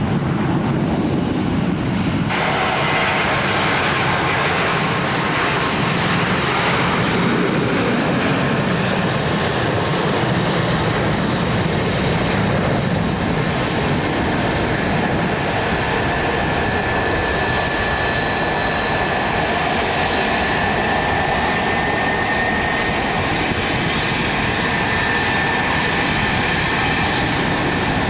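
Airliner engines running steadily: a loud, even rush of engine noise, with a high whine joining about two seconds in.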